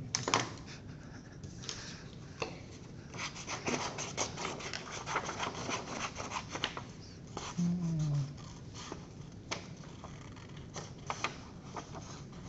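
Small scissors snipping through drawing paper in a run of quick cuts, with a brief clatter near the start as the scissors are taken from a box of scissors. A short low falling hum sounds about midway.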